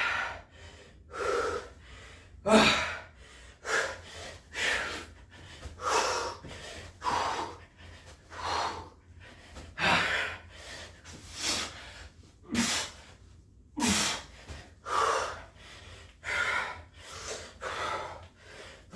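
A man panting hard from the exertion of continuous burpees: sharp, forceful breaths about once a second.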